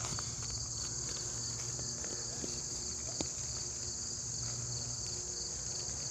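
Steady, high-pitched chorus of insects. Under it come faint rustling and a few light clicks as a hand digs through the foam padding of a bag target.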